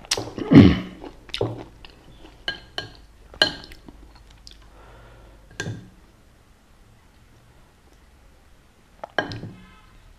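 A person eating fresh fruit close to the microphone: a short mouth sound, then crisp bites and chewing heard as scattered sharp clicks and crunches, with light clinks of dishes.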